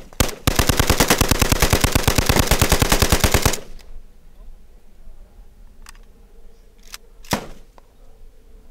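AK-47 rifle in a bump-fire bullpup stock: a single shot, then a rapid burst lasting about three seconds, the recoil bouncing the trigger against the finger to give near-automatic fire from a semi-automatic rifle. A few separate gunshots follow, the loudest near the end.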